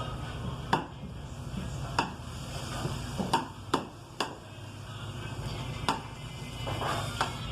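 Kitchen utensils knocking and clicking against cookware or a cutting board during cooking, about seven sharp, irregular knocks over a steady low hum.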